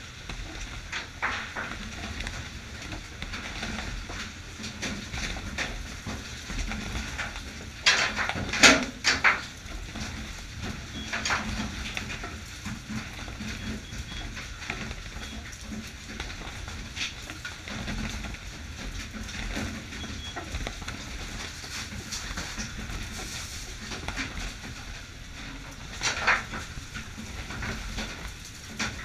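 Fish being packed in a fishing boat's fish hold: irregular clatter and knocks, loudest in a cluster about eight seconds in and again near the end, over the boat's steady low engine rumble.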